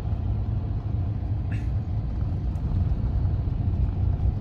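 Cabin noise of a moving vehicle on pavement: a steady low rumble of engine and tyres.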